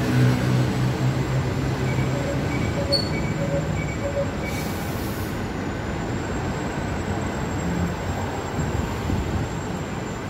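Steady city traffic noise heard from above the street. A vehicle's low engine hum fades in the first two seconds, a run of short, evenly spaced beeps sounds from about two to four seconds in, and a brief hiss follows about five seconds in.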